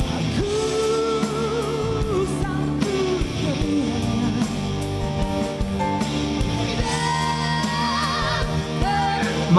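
A male and a female singer in a duet ballad, holding long notes with vibrato over a band backing of guitar, bass and drums. The man sings the harmony above the woman's line.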